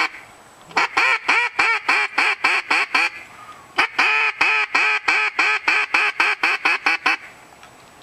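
Hand-blown duck call sounding a long series of quick quacks, about five a second, in two runs with a short pause between. A sharp click comes right at the start.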